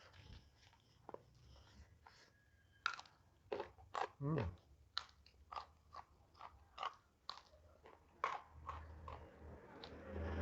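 Close-up crunching and chewing of crisp food in the mouth: quiet at first, then a run of sharp, irregular crunches from about three seconds in.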